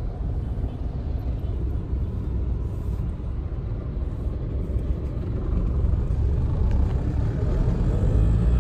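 Steady low rumble of road and engine noise heard from inside a moving car's cabin, a little louder in the last few seconds.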